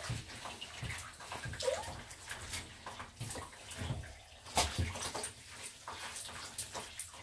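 Water sloshing and dripping in a small plastic bath tub as a wet puppy is lifted and handled in it, in irregular small splashes and clicks.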